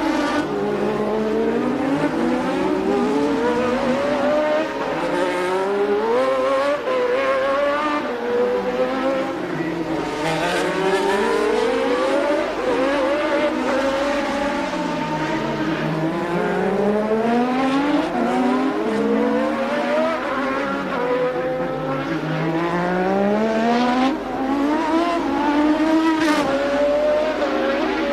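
1988 Formula One race car engines at racing speed, the pitch climbing through the gears and dropping back on downshifts, over and over.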